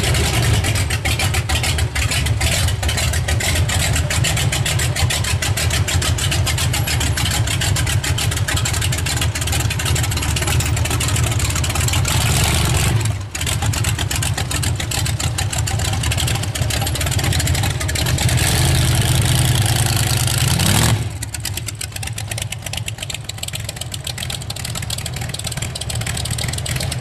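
Supercharged big-block Chevy V8 in a hot rod coupe idling loud and lumpy. About three-quarters of the way through it revs and pulls away, then sounds quieter as it drives off.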